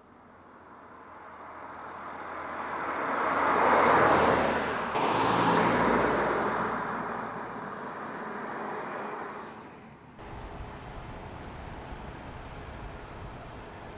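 Mercedes-Benz SLC 300 roadster's turbocharged four-cylinder engine and tyres as it drives by: the sound swells to a peak about four to six seconds in, then fades as the car moves away. After a sudden change about ten seconds in, a steadier, lower engine and road sound follows.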